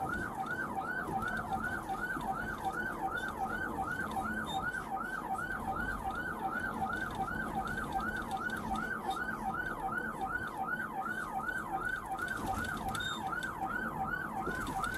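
Police siren in yelp mode, a fast, steady series of rising-and-falling whoops about three a second, sounding continuously during a vehicle pursuit.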